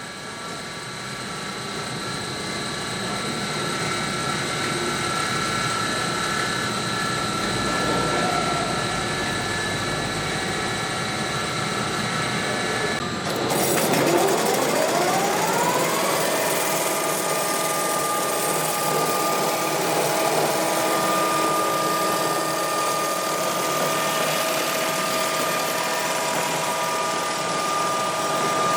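Welding-electrode making machinery running with a steady motor whine made of several held tones. About thirteen seconds in the sound changes abruptly, and a motor's whine rises in pitch for a few seconds before holding steady.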